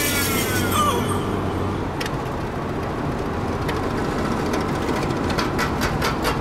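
Steady road and engine noise inside a car's cabin while driving at speed on a rural road, with a quick run of light ticks near the end.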